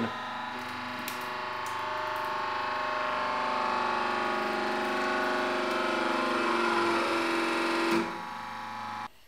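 40-ton hydraulic press's pump and motor straining under a rising load as the ram crushes a PLA 3D-printed part flat: a steady whining hum made of several tones that grows slightly louder. About eight seconds in, with the press at its full 40 tons, it drops to a quieter hum, then cuts off.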